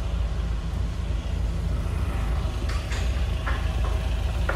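Steady low rumble of an idling vehicle engine, with a few light knocks around the middle and a sharp knock near the end.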